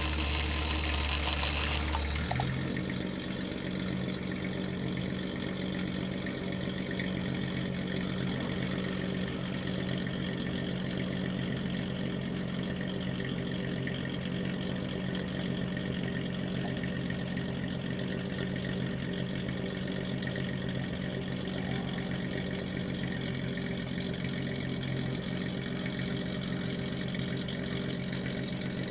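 A boat's engine idling steadily. About two seconds in its note shifts: a deeper hum drops away and a slightly higher steady drone carries on.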